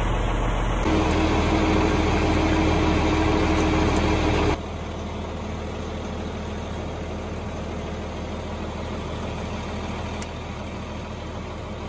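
John Deere tractor engine idling steadily. The sound changes abruptly about a second in and gets quieter about four and a half seconds in.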